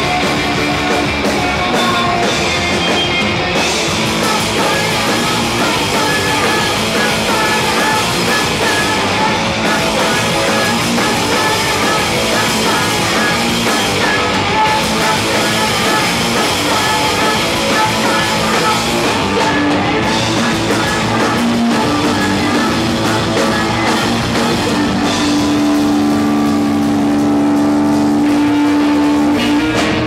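Live rock band playing loud: electric guitar and drum kit, with a singer. Over the last few seconds held notes ring out steadily.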